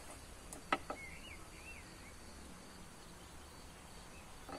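A knife striking a wooden chopping board once with a sharp knock, with a couple of lighter taps around it, followed by a bird giving a few short rising-and-falling chirps, over faint steady background noise.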